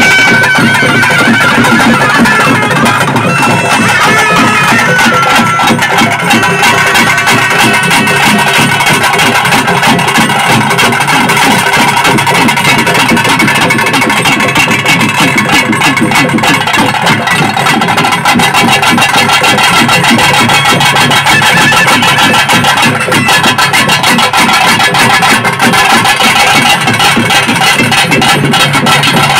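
Loud traditional ritual music of a Tulu kola ensemble: a reed pipe plays a wavering, gliding melody over fast, dense drumming. The pipe's melody stands out most in the first few seconds.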